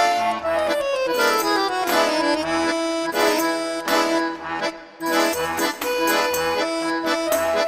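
Instrumental background music: a melody that runs downward over the first two seconds, over regular pulsing bass notes.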